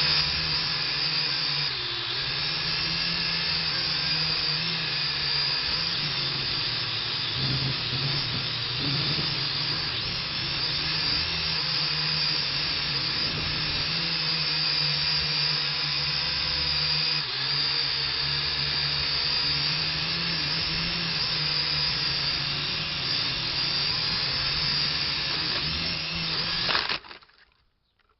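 Quadcopter drone's propellers and motors running steadily, a constant multi-pitched whirring hum that cuts off suddenly near the end.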